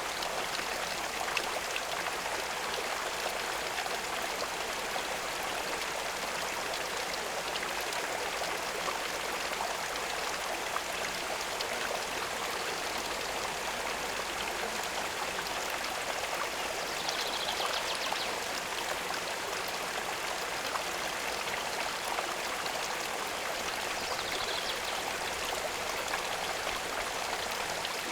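Steady running water at a pond, an even unbroken splashing and rushing.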